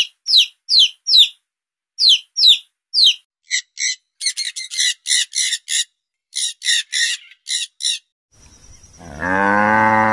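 Domestic chicks peeping in short falling notes, about three a second. Then a blue-and-gold macaw gives rapid harsh squawks, and near the end a cow lets out one long low moo.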